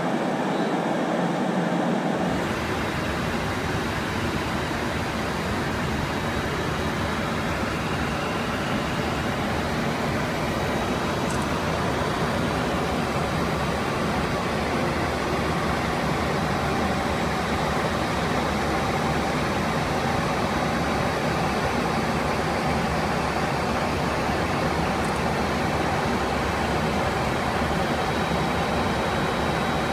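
Steady rushing noise of airflow and engines heard from inside an airliner in cruise flight. About two seconds in, a thinner steady noise gives way to this fuller one, which then holds level without change.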